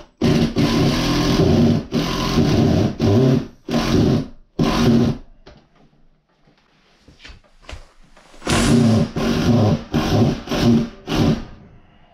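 Cordless drill running in short bursts as it drives screws through a metal mounting bracket into the wall, with many bursts in the first five seconds, a pause of about three seconds with a few faint clicks, then several more bursts.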